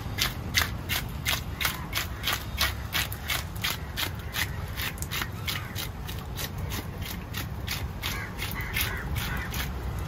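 A knife scraping the scales off a large rohu fish in quick, regular strokes, about three short rasps a second, over a steady low background rumble.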